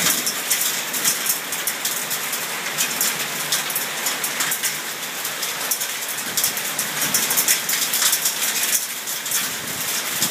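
Heavy thunderstorm rain pouring steadily, with many sharp ticks of drops striking hard surfaces close by.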